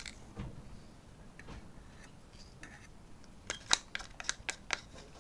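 Small hard items being handled at the work table while paint is put into cups: a few faint taps, then a quick run of about seven sharp clicks from about three and a half seconds in.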